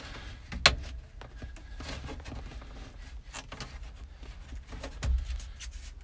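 Hands working at a truck's steering column and dash panel: a sharp click about two-thirds of a second in, light clicking and rubbing, and a dull thump about five seconds in.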